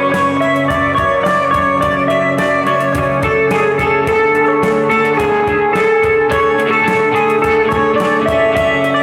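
Instrumental passage of a rock song with no vocals: electric guitar playing long held and sliding notes over a steady, evenly repeating beat.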